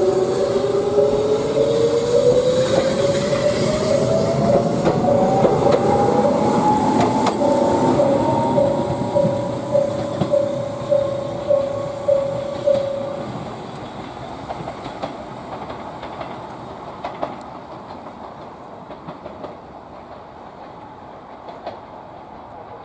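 Konan Railway 7000-series electric train pulling away, its traction motors whining steadily upward in pitch as it gathers speed over the wheel and rail clatter. After about 13 seconds the running noise drops and fades as the train goes away, leaving faint clacks over rail joints.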